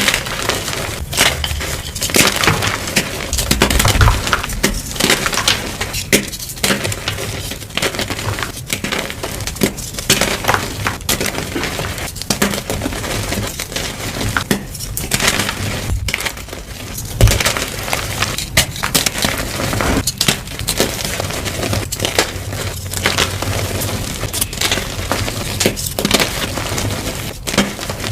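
Blocks of gym chalk being crushed, crunching and crumbling in a dense, continuous run of crisp crackles and snaps.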